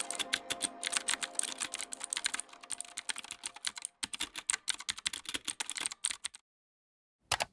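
Rapid typing on a computer keyboard, a fast run of key clicks that stops about six seconds in. A single brief click follows near the end.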